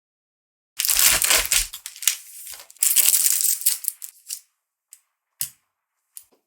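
Crinkling, tearing handling of snack packaging in two long bursts, about a second in and near three seconds, followed by a few light clicks.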